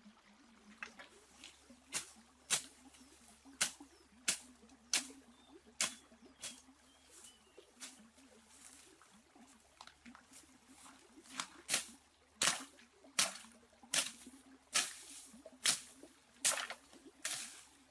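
Water splashing and slapping in a string of short, sharp splashes at uneven intervals, growing louder and more frequent in the second half.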